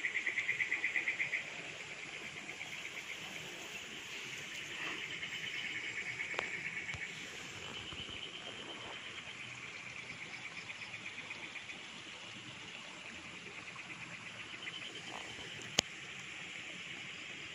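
Insects trilling in overlapping bouts of rapid, even pulses, loudest in the first second or so. There is one sharp click near the end.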